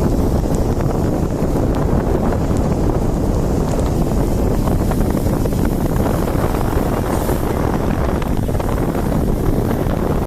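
Steady rumble of a moving vehicle on the road, mixed with wind buffeting the microphone.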